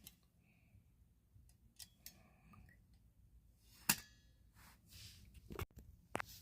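Hard objects being handled: a few scattered clicks and knocks, the loudest about four seconds in, over faint low background noise.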